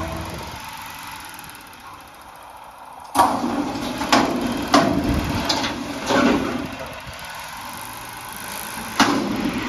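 A passing truck's engine fades away, then a front-loading garbage truck's engine revs up about three seconds in as it works the lift arms, and a steel dumpster clanks and bangs several times over the cab while it is tipped and shaken empty into the hopper.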